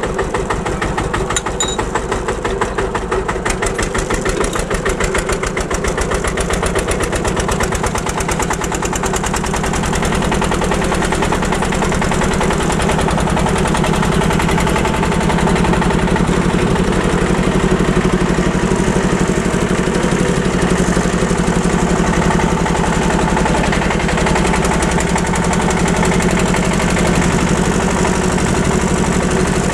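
Small vintage tractor's engine running as it drives, a rapid even chugging that becomes smoother and slightly louder from about ten seconds in.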